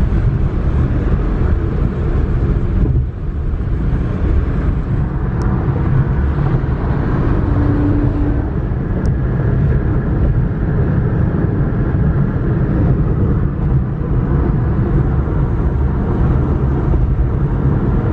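Road and wind noise inside a moving car's cabin at highway speed, a steady low rumble.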